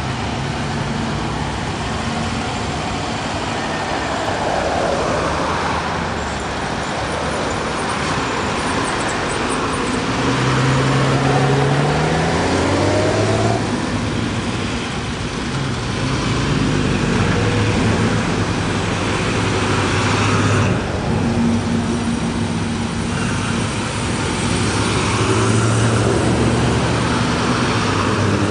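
A procession of classic Rover cars driving past one after another, each engine note swelling and gliding in pitch as the car goes by over steady road and tyre noise.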